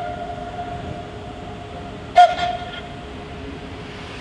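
Swiss electric locomotive's horn: the fading tail of a long blast, then one short, loud toot about two seconds in, over the steady rumble of the approaching train.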